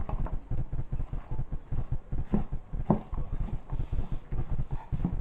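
Shredded cassava (abacha) being stirred into palm oil with a spoon: a quick, irregular run of dull knocks and scrapes, several a second, as the salad is mixed.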